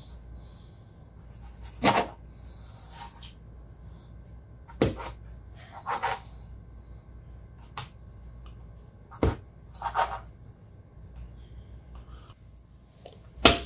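Kitchen knife cutting through raw potatoes and knocking down onto a plastic cutting board: about seven separate chops at uneven intervals, some with a short scrape of the blade.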